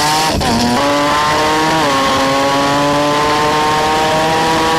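Drag car engine running at full throttle down the strip, its pitch climbing steadily. The pitch drops sharply at two gear changes, about half a second in and just under two seconds in.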